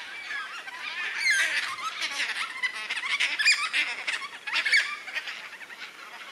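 A flock of black cockatoos calling: many harsh, overlapping calls, with louder ones standing out about a second in and again through the middle.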